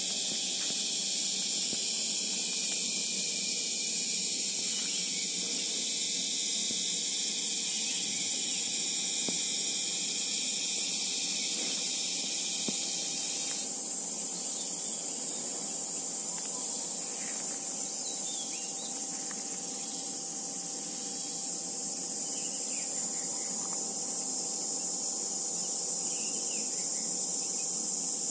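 Steady high-pitched insect chorus shrilling without a break, with a few faint chirps in the second half.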